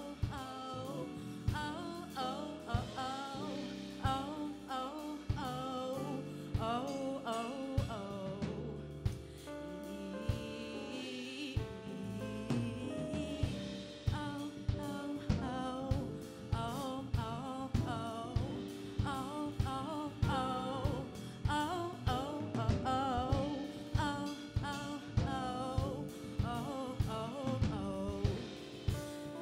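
Live band playing: a woman singing lead over keyboard, electric bass and drum kit, with a steady drum beat that comes in stronger about twelve seconds in.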